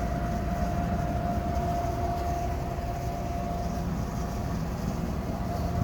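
Gas furnace running with its burners lit and its draft inducer and blower fans going: a steady low rumble with a steady whining tone over it. The inducer motor sounds rough, which the owner puts down to its bearings going out.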